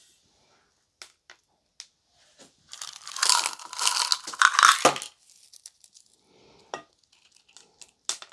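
Plastic packet of candy rocks crinkling as it is handled and the rocks are shaken out. The loudest rustle comes about three to five seconds in, with scattered small clicks and taps before and after.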